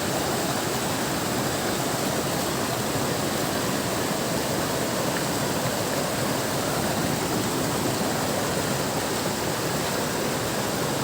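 Boiling volcanic hot-spring water, a steady rushing noise.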